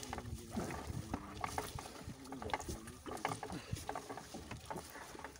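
Fishing net being hauled by hand over the side of a wooden outrigger boat: irregular clicks and knocks as the net and its weighted line come aboard over the gunwale.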